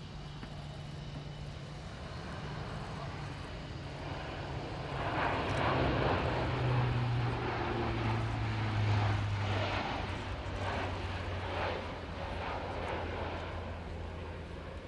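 Four-engined Lockheed Martin C-130J Hercules turboprop flying past low overhead, its Rolls-Royce AE 2100 engines and six-bladed propellers giving a low drone. The drone swells to its loudest about halfway through and drops in pitch as the aircraft passes, then goes on with a slow throbbing beat as it banks away.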